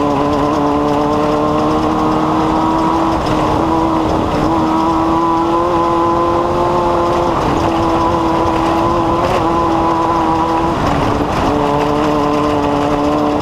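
An engine running steadily at a near-constant speed, its hum stepping slightly up or down in pitch a few times.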